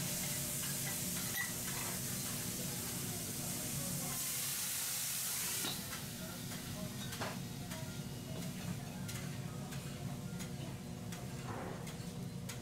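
Food sizzling on a teppanyaki iron griddle, a steady frying hiss that drops in level about six seconds in. A few sharp clicks come through in the second half over a steady low hum.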